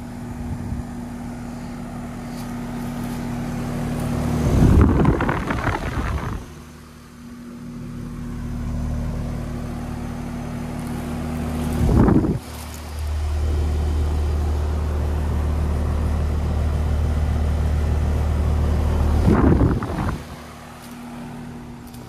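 Outdoor heat pump and air-conditioner condenser units running: a steady compressor hum under the whir of the condenser fan, with the tone of the hum changing twice as different units are heard. Three loud rushing whooshes break in, about five seconds in, around twelve seconds in, and near the end.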